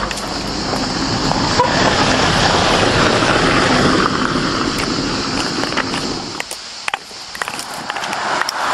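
Car driving along a road: steady engine and road noise that thins out about six and a half seconds in, then picks up again near the end.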